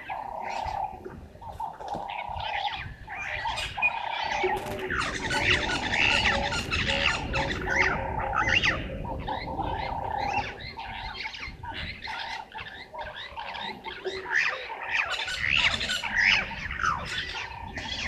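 Many wild birds calling at once: dense, overlapping chirps, whistles and squawks. A steady trilling note runs underneath and fades out about halfway through.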